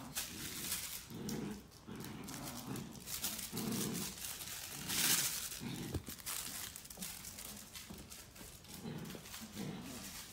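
Two puppies, a Great Dane–poodle cross and a Chihuahua, play-growling during a tug-of-war over a toy, in repeated low growls about every second. A burst of scuffling comes about five seconds in.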